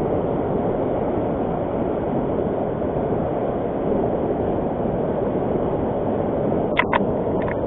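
Rushing river water from a fast-flowing river, a steady, even noise, with two brief clicks about seven seconds in.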